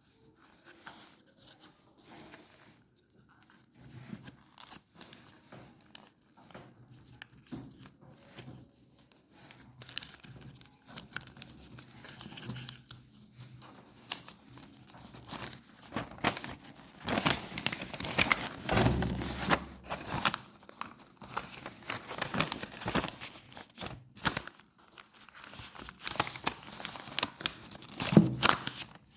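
Crinkling and tearing of paper-like craft material as it is handled, a dense run of irregular crackles and rips that grows busiest and loudest a little past the middle, with another loud burst near the end.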